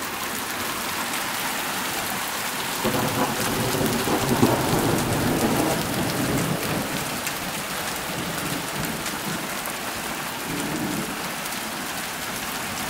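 Heavy rain at the tail end of a hailstorm, pouring down: a dense steady hiss full of fine ticks and patters. A low rumble swells about three seconds in and fades out by about seven seconds.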